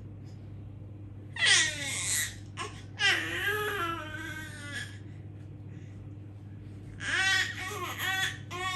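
Baby fussing, letting out high, wavering whiny cries in three short bouts.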